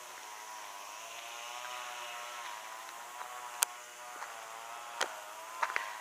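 A steady mechanical hum whose pitch wavers slightly. Two brief sharp clicks come in the second half.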